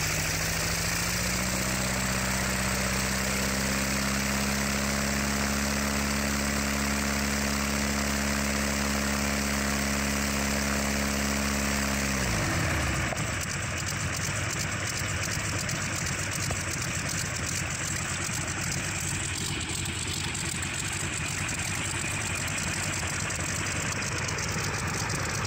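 Verner Scarlett 9S nine-cylinder radial aero engine running on a test stand, turning its propeller. Its pitch rises in the first second and holds steady, then about twelve seconds in it drops quickly and the engine runs on with a rougher, pulsing sound.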